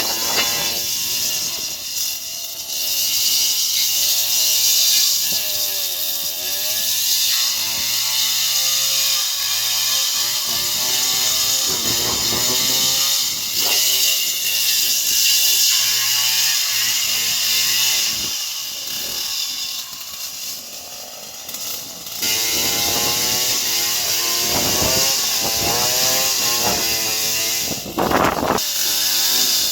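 Stihl two-stroke chainsaw running at high revs and cutting palm wood, its engine pitch rising and falling as it works in and out of the cut. It eases off for a few seconds about two-thirds of the way through, then goes back to full cutting.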